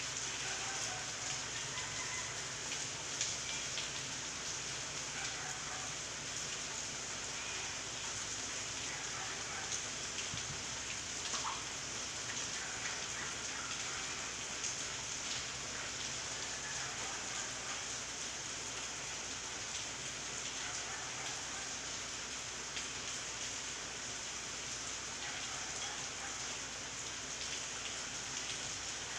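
Steady rain falling during a typhoon, with a few faint, sharper drop ticks scattered through it.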